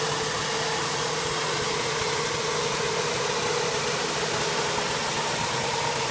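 Gas-engine pressure washer running steadily, a constant engine drone under the hiss of the water spray.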